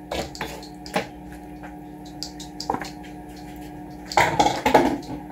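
Tinned tomato pieces in juice being tipped into a pan of cooking vegetables: wet squelches and drips with a few light knocks, then a louder burst of pan clatter about four seconds in.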